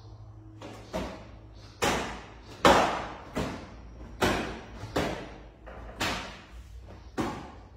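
Loose wooden bed slats knocking against the wooden bed frame as they are handled and set down, a string of sharp wooden knocks roughly once a second.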